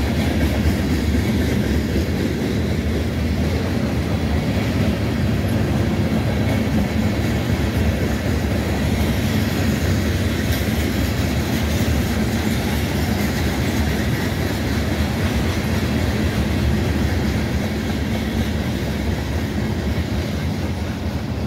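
Freight train of tank cars and covered hopper cars rolling past at close range: steel wheels running steadily on the rails with clatter over the rail joints.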